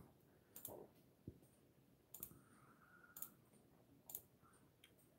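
Faint computer mouse clicks, about five spaced over a few seconds, some as quick double clicks, against near-silent room tone.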